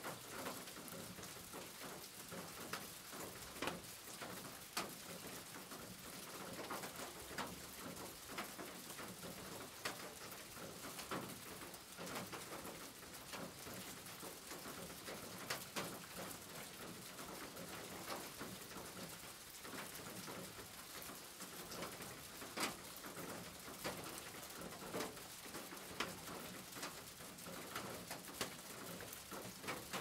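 Rain falling on a corrugated metal roof: a steady patter dotted with sharper ticks of single drops. A dove cooing is heard over the rain.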